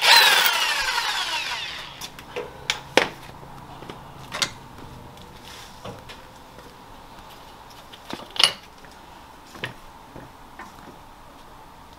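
Power tool running in a short burst at the start, its pitch falling as it spins down over about two seconds, while loosening suspension link hardware. After that come scattered metallic clinks and knocks of parts being handled, the loudest about eight seconds in.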